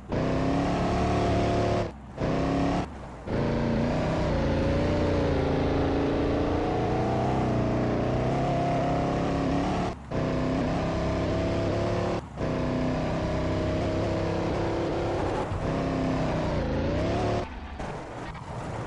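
K5 Blazer's Cummins diesel engine running under load off-road, its pitch rising and falling as the throttle changes, with several brief breaks in the sound.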